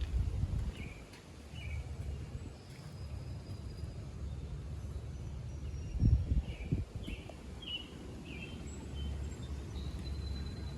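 Steady low background rumble with short bird chirps scattered through it, and a brief thump about six seconds in.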